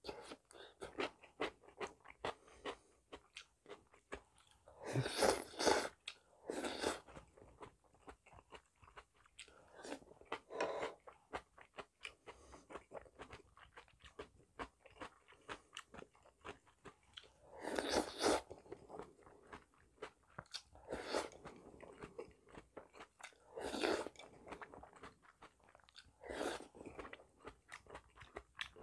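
Close-miked eating of janchi guksu (Korean noodle soup): constant wet chewing and mouth clicks, broken by several louder slurps of noodles, the loudest about five seconds in and about eighteen seconds in.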